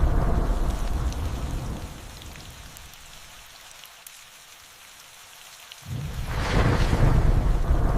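Steady rain falling, with scattered drop ticks, and thunder: a heavy rumble that fades away over the first two seconds, then a second peal that breaks in suddenly about six seconds in and rolls on.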